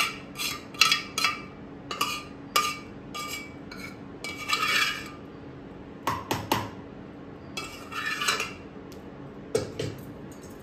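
A metal ladle clinking and scraping against a steel cooking vessel: quick clinks in the first few seconds, longer scraping strokes about four and a half and eight seconds in, and a few knocks between. A faint steady hum runs underneath.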